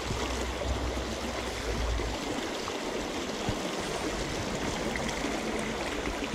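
Shallow creek water running steadily over rocks in a riffle.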